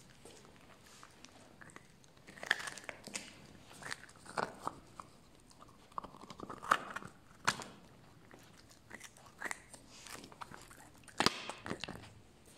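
A puppy gnawing and crunching on a large meaty bone: irregular crunches and cracks of its bites, spaced about half a second to a second and a half apart.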